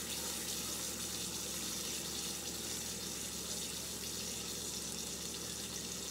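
Catfish fillet searing in oil in a cast-iron skillet, sizzling steadily.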